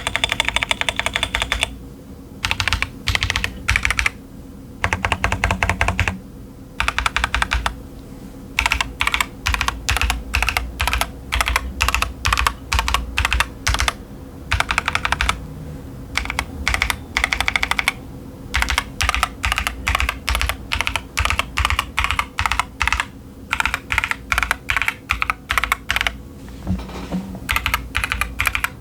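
Typing on a Keychron Q10 mechanical keyboard with TTC Chaotic Panda switches and SA-profile doubleshot ABS keycaps: quick runs of keystrokes broken by short pauses.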